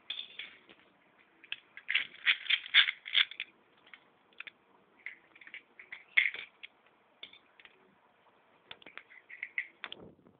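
Beyblade spinning-top parts of metal and plastic clicking and clattering in irregular clusters, loudest in a rapid run about two to three and a half seconds in and again around six seconds in.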